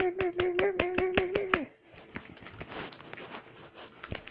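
Rapid, sharp clicks and pops of fluffy slime being squeezed and worked by hand, with a voice holding one steady note over them for the first second and a half; after that the clicks go on, quieter and denser.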